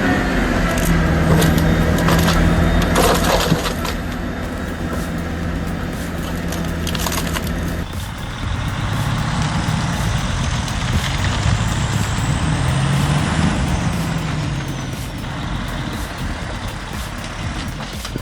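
Heavy machinery's engine running steadily, with a few sharp cracks in the first few seconds. About eight seconds in the sound changes, and the engine note rises and then falls near the middle.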